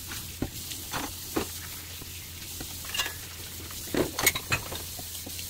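Fried rice with diced ham sizzling in a frying pan as a spatula stirs and scrapes it. Scattered clacks of the spatula against the pan come throughout, with a quick cluster of them about four seconds in.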